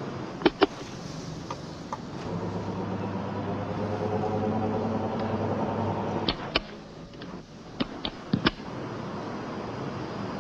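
Vehicle on the move: steady road and engine noise, with an engine drone that swells from about two seconds in until about six seconds. A few sharp clicks sound through it.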